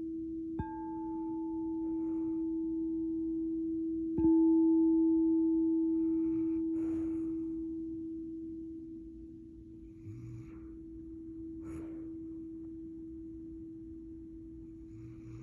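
Struck sound-healing instrument ringing a steady low hum, struck sharply about half a second in and again, louder, about four seconds in; each strike adds a higher ring that fades over several seconds. From about six seconds in, a dog snores softly every few seconds under the hum.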